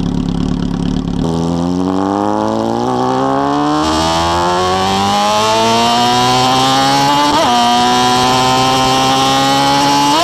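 Honda Hornet 600 inline-four motorcycle with a 4-into-1 exhaust, accelerating. From about a second in its note climbs slowly and steadily, with a brief break at a gear change about seven seconds in and another near the end.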